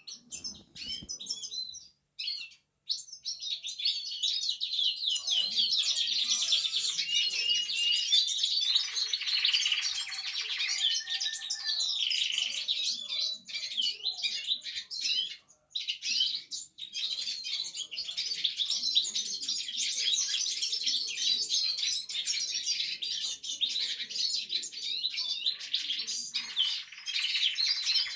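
Domestic canary singing its first practice song: a long, varied warble of rapid trills and chirps, broken by two short pauses, one near the start and one about midway.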